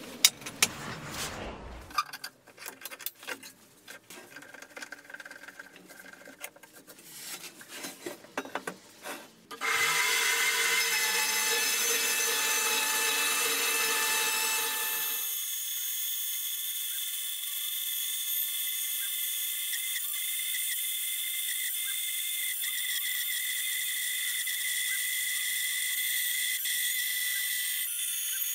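Faint scattered knocks and handling sounds, then about ten seconds in a small metal-cutting band saw starts up and runs steadily, its blade cutting through a rusty steel beam with a steady whine.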